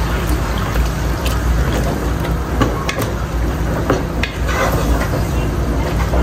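A wooden spatula stirs and scrapes minced mutton frying in oil in a nonstick pot, with scattered clicks and scrapes over the sizzle of the meat being browned. A steady low hum runs underneath.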